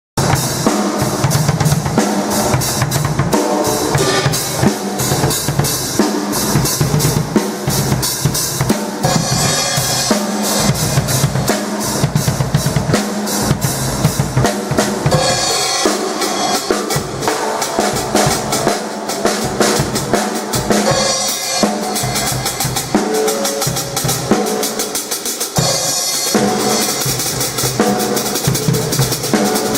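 A drum kit played continuously: bass drum, snare and rimshots under a constant wash of cymbals.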